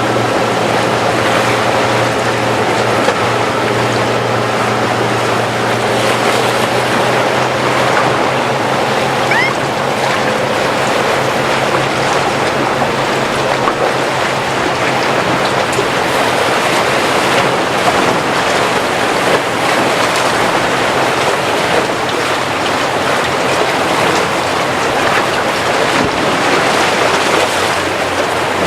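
Mercury outboard-powered speedboat running through rough inlet water, its engine tone mixed with rushing water, waves and wind on the microphone.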